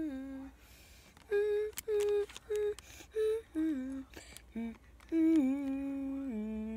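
A person humming a tune: a run of short, evenly pitched notes, then lower notes held longer near the end, with a couple of faint clicks in between.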